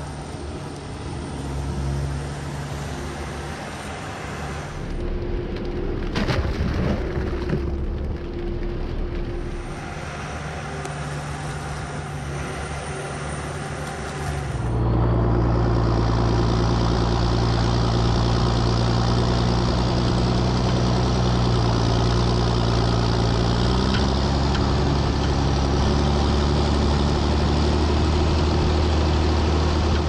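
Engine of a barn-scraping farm machine running steadily, with a few knocks about six to seven seconds in. About halfway through it gets louder and holds there, as if the engine is put under more throttle.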